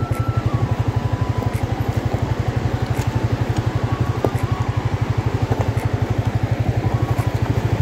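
Motor vehicle engine running at a steady speed: a fast, even low throb.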